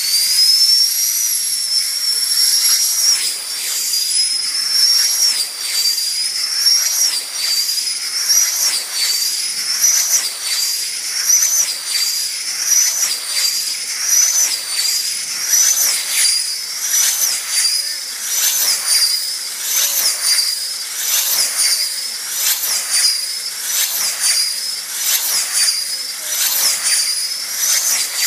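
Battery-powered 80 mm electric ducted-fan tether car running flat out around the circle: a high-pitched fan whine that swells and bends in pitch about once a second as the car passes on each lap.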